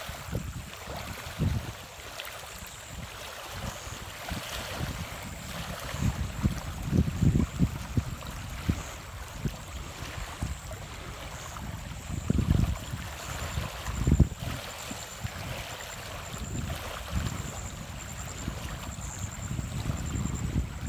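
Wind buffeting the microphone in uneven low gusts, over a steady wash of small waves lapping on a stony lake shore.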